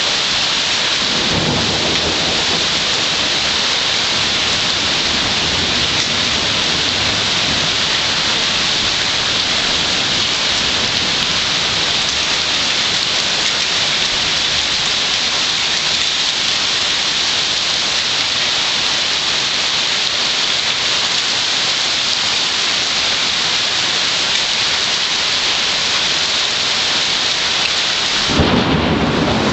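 Heavy rain pouring down steadily in a thunderstorm, with a low rumble of thunder about a second in and a stronger rumble of thunder near the end.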